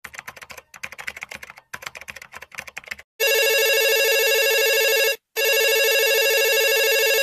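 Keyboard-typing sound effect, rapid clicks for about three seconds, then a telephone ringing: two trilling rings of about two seconds each with a short gap between them.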